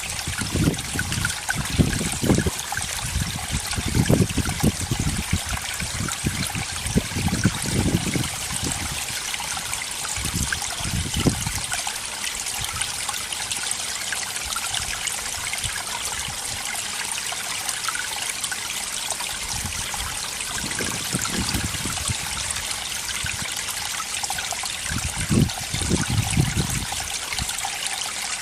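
Running water trickling steadily, as a small stream flows. Irregular low rumbles come and go through the first half and again near the end.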